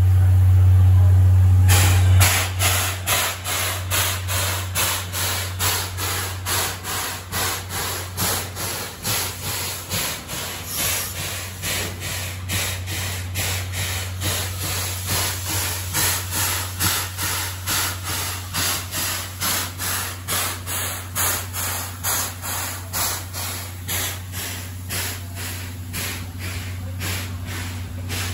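Steam locomotive C11 123, a 1947 Hitachi-built C11 tank engine, hissing in a steady rhythm of about two beats a second that starts suddenly about two seconds in, after a low rumble.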